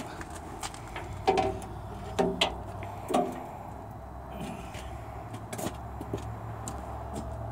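Three sharp metal clanks with a short ring, about a second apart, from handling the PTO driveline and hitch parts of a tractor-mounted snowblower, with lighter clicks and a steady low hum underneath.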